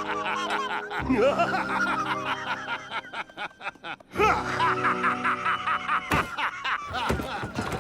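A character in a cartoon laughing, a snickering, cackling laugh in two bouts, over the background music score.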